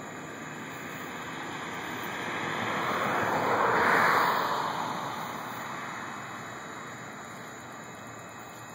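A car passing by on a nearby road: tyre and engine noise swells to a peak about four seconds in, then fades away, over a steady background hiss.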